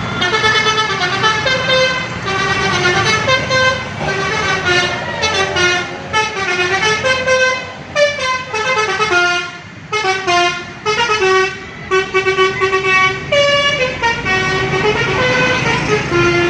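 A bus's telolet musical air horn playing a long melody of quick stepped notes, over the low rumble of the bus engine.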